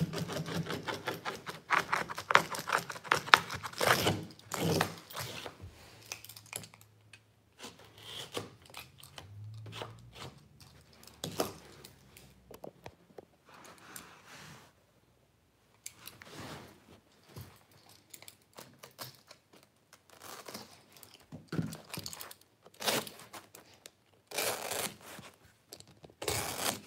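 Utility knife slicing through carpet and its backing, trimming the excess along the wall: a rapid run of raspy cuts in the first few seconds, then scattered cuts and scrapes with a brief pause in the middle.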